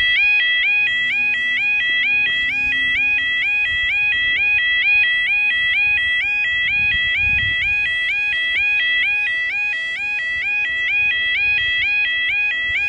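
Footpath level crossing's electronic alarm sounder at close range, giving a loud two-tone warble that steps from a low note up to a higher one about three times a second: the warning that a train is approaching.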